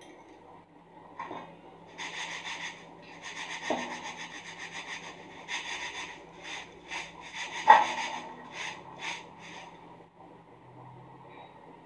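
Poha (flattened rice flakes) shaken and rubbed around a stainless steel sieve: a rhythmic rustling hiss of dry flakes against the mesh, sifting out the broken bits and dust. Two sharper knocks come through it, the louder about two-thirds of the way in.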